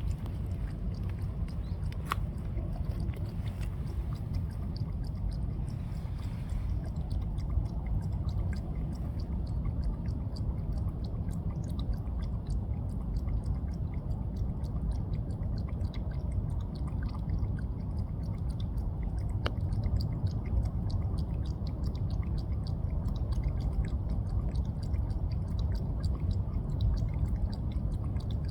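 A cat lapping water with its tongue: a quick, steady run of soft wet ticks, over a continuous low rumble.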